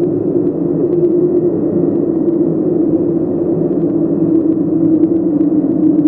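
Hollow wind horror sound effect: a steady, low droning hum with a breathy noise haze over it and no gusts or breaks.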